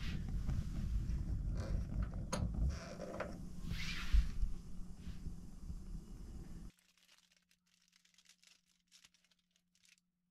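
Low, shifting rumbling noise with scattered rustles and a few knocks. About two-thirds of the way through it cuts off abruptly, leaving faint ticks and crinkles over a low hum.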